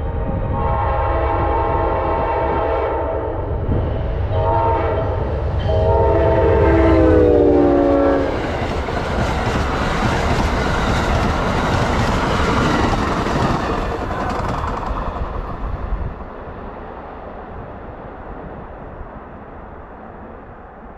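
Amtrak P42DC locomotive's horn sounding a long blast, a short one, and a final long blast, the crossing-signal pattern. The pitch of the last blast drops as the engine passes about eight seconds in. Then the passenger cars rumble and clatter by on the rails, and the sound fades away.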